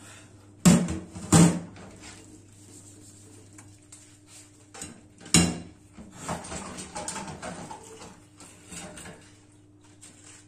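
Dishes and a stainless steel bowl knocking and clinking against each other and the steel sink during hand washing. Two sharp knocks come close together about a second in, and a louder one about halfway through, with lighter clatter in between.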